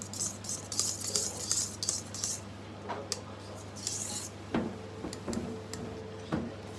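Wire whisk scraping and beating cake batter in a stainless steel mixing bowl. In the second half come several sharp knocks against the bowl that leave it ringing briefly.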